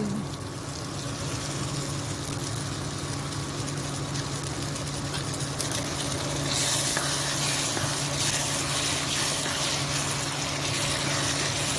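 Cut cluster beans and potato pieces sizzling as they hit hot onion-tomato masala in a nonstick pan and are stirred with a spatula. The hiss is steady and grows louder about six and a half seconds in, with a few faint ticks and a steady low hum underneath.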